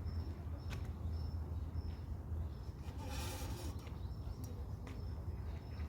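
Birds calling outdoors: short high chirps repeated every half second or so over a steady low rumble, with a brief hiss about three seconds in.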